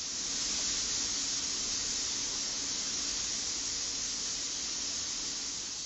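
Steady loud hiss of air or steam from factory machinery on a handle-coating line, with a faint low hum underneath.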